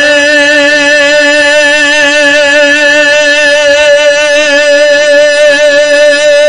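A voice holding one long sung note with a slight waver, part of a noha lament.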